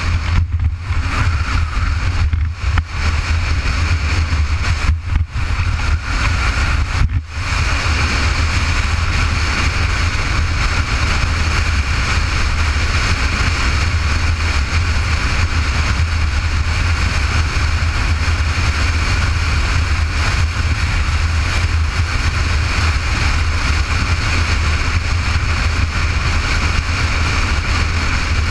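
Motorcycle riding at road speed, heard from a camera mounted on the bike: steady engine drone mixed with wind rushing over the microphone, with a few brief dips in the first seven seconds.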